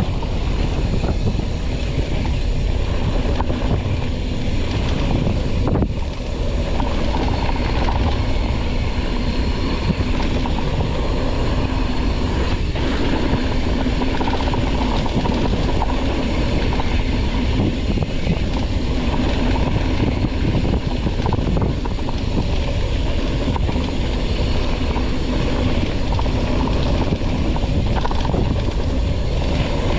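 Mountain bike rolling fast downhill over a rough dirt trail, with steady wind rushing over the camera microphone and the bike rattling.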